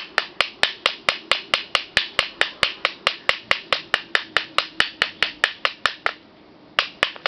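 A fast, even series of sharp clicks, about four or five a second, that stops about six seconds in and starts again just before the end.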